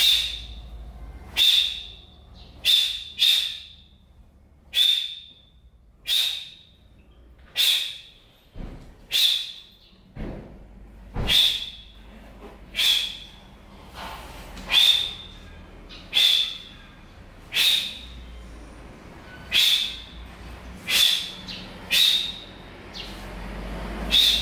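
Taekwondo pattern being performed: a sharp hissing snap with each block or strike, about seventeen in all at uneven gaps of roughly one to two seconds. A faint low hum underneath.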